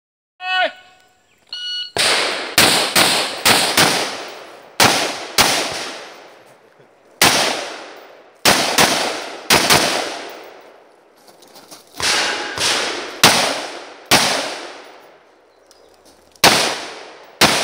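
A shot timer's short start beep, then a semi-automatic AR-style rifle firing about nineteen shots in several quick strings of two to five shots, with brief pauses between strings.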